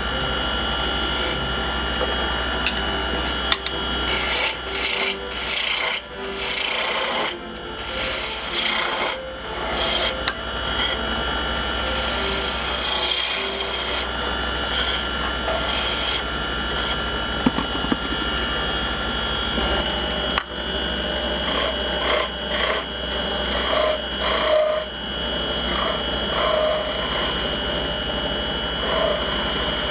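Wood lathe running with a turning tool cutting into the spinning wood: a steady motor hum under scraping, shaving sounds that come and go in irregular bursts, busiest in the first half.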